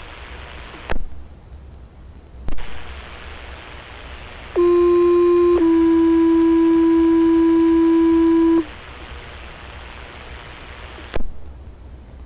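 Two-tone sequential paging tones from a fire dispatch radio channel, heard through a scanner: a tone of about a second, then a slightly lower tone held about three seconds, sent to set off the firefighters' pagers. Scanner hiss around it, broken by squelch clicks with short moments of dead silence.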